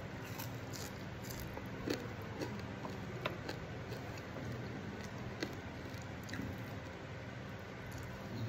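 Close-up eating sounds: a person chewing and biting fried jelawat fish with rice, eaten by hand, with soft squishes and a few short, sharp clicks about two, two and a half, three and five and a half seconds in, over a steady low hum.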